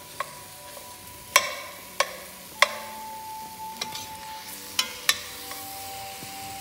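A metal slotted spoon clanks and scrapes against an enamelled cast-iron pot as ground turkey is chopped up and stirred with bell peppers. Sharp knocks come every second or so, several leaving a brief ring from the pot, over a soft frying sizzle.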